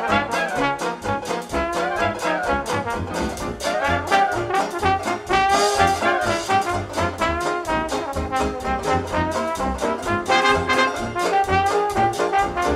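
Background music: a jazz dance band, led by trumpets and trombones, playing an up-tempo number with a steady beat.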